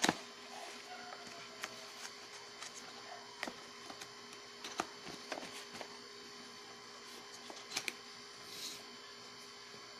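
A cardboard sunglasses box and its paper sleeve being handled: scattered light taps, clicks and scrapes, the sharpest right at the start, over a steady faint hum.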